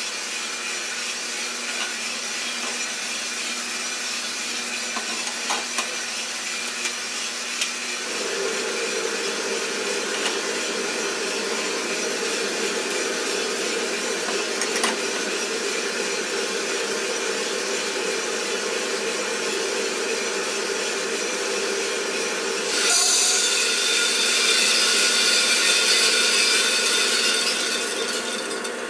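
Coffee roaster running: a steady motor and fan hum with a few sharp clicks in the first half. About eight seconds in, a second, higher hum joins; about twenty-three seconds in, a louder rushing hiss starts and fades near the end.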